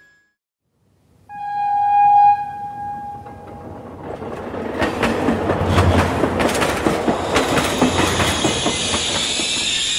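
A train sound effect: a single-pitched blast of the train's signal, then the train running along the track with a rhythmic clickety-clack of wheels on rail joints, building up from about four seconds in.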